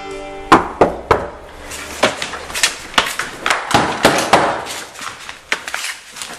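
A scuffle: a rapid, irregular run of sharp knocks, slaps and thumps, with bodies and hands banging against a wooden door.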